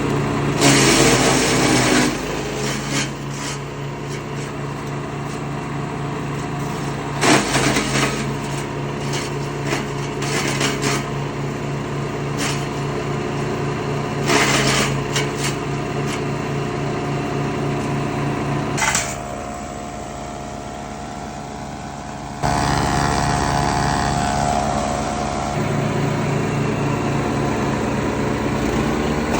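A 15 HP Gaja woodchipper running steadily, with several short loud bursts of noise, as when branches are fed through and chipped. The engine drops quieter for a few seconds, then jumps back up in level with a higher steady tone.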